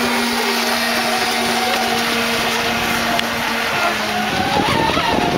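Racing powerboat engine running flat out across the water, a steady drone over a noisy hiss that drops away about four seconds in.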